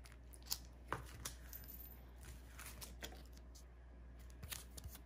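Faint rustling of art prints in clear plastic sleeves being handled and shuffled, with a few small, sharp ticks scattered through as the sleeves and card edges knock together.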